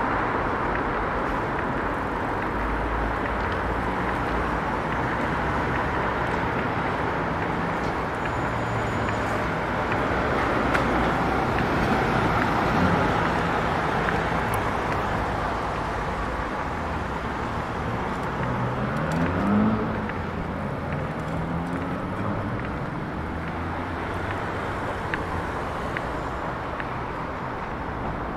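Steady city road traffic, cars and buses passing along a busy street. About two-thirds of the way through, one vehicle's engine rises in pitch as it pulls away, the loudest moment.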